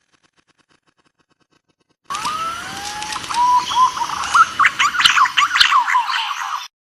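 Green pigeon (punai) whistled calls. A few long gliding whistles are followed by a fast run of warbling notes; they start abruptly about two seconds in and cut off just before the end.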